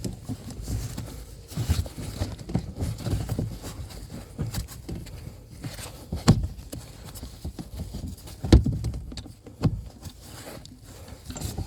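Irregular clunks, knocks and scraping of metal parts handled by hand as the steering shaft joint is worked onto the steering rack's pinion, with two sharper knocks past the middle.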